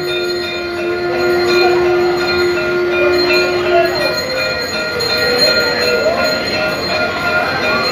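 Ringing of temple bells and other aarti sounds, with several steady metallic tones throughout. A long held note runs through the first four seconds and breaks off, then wavering chanted voices rise over the ringing.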